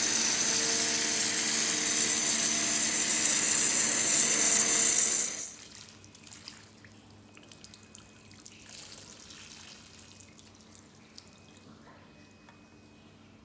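Waterjet cutter engraving a marble slab: a loud, steady hiss of the high-pressure water jet striking wet stone, which cuts off suddenly about five seconds in. After that only faint drips and small clicks are left.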